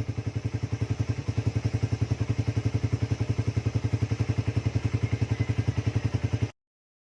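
Carburetted Suzuki Raider 150 single-cylinder four-stroke engine running through an Apido aftermarket exhaust pipe, idling steadily with an even exhaust beat of about eleven pulses a second. The sound cuts off suddenly near the end.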